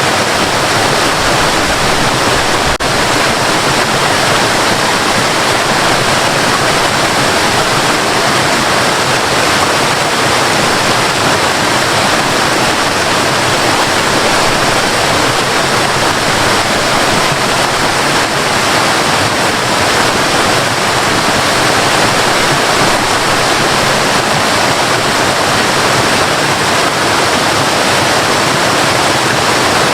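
Waterfall: a steady, loud rush of falling and splashing water, even throughout.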